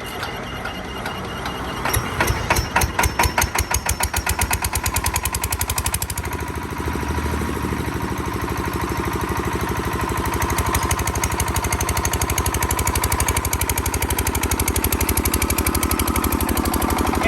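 Bajaj 5 kVA handle-start diesel generator engine starting. It fires about two seconds in with heavy, separate beats that quicken, then settles by about six seconds into steady, even running.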